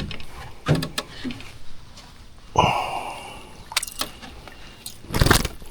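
A few sharp knocks and rattles of gear being handled in a fishing boat, with a louder rushing sound about two and a half seconds in.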